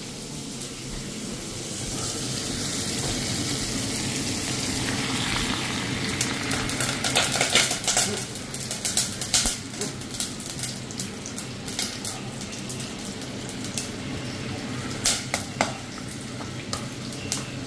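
Meat frying in a pan, a steady sizzle that swells about two seconds in. From about six seconds on, a metal spatula scrapes and clicks against the pans over the sizzle.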